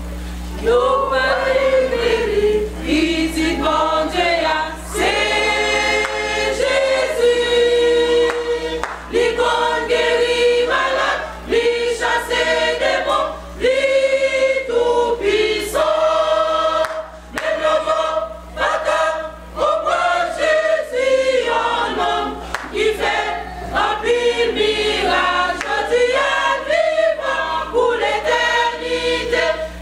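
A women's choir singing a worship song, starting about a second in, over a steady low electrical hum.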